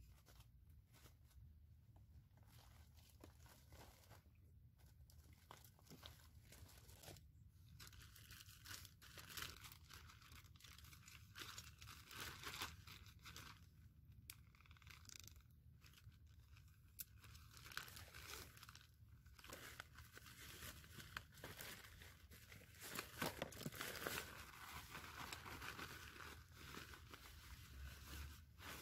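Faint crinkling and tearing of a foil-lined pouch being handled and opened, in many short crackly bursts that start about a third of the way in and come and go.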